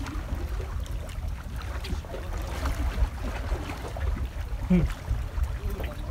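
Wind rumbling on the microphone, with faint clicks and rustles as a small fish is handled and unhooked from the lure.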